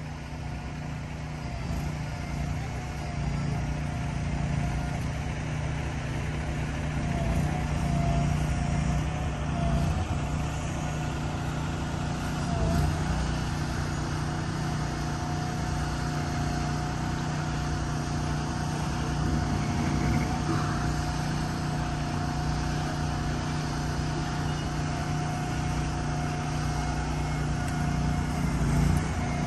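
Heavy truck engines running steadily at low speed as the beam trucks inch along, with a steady whine holding from about halfway through.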